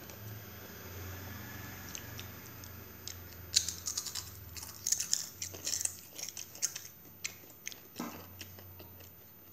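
A child biting into and chewing Doritos tortilla chips: a quick run of crisp crunches that starts about three and a half seconds in and thins out a few seconds later.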